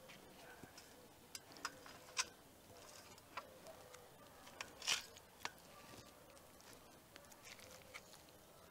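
Scattered light taps and clicks of a plastic spatula against a metal baking tray and steel platter as pieces of salt-baked salmon are lifted and the salt crust is broken up. The loudest tap comes about five seconds in.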